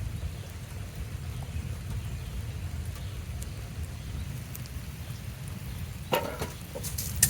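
Steady heavy rain, with a deep constant noise underneath and a short louder noise about six seconds in.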